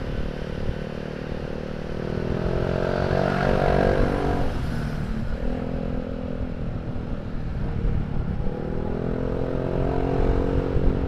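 Motor scooter engine running through a cheap aftermarket racing silencer on the move, its exhaust note rising and falling with the throttle, climbing three times. Pushed hard it sounds a little cracked, which the rider puts down to the low price of the silencer.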